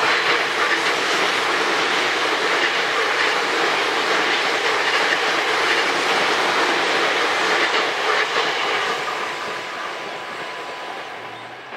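Tokyu 2020 series electric train passing close by at speed, its wheels running steadily on the rails. The sound fades away over the last few seconds as the train recedes.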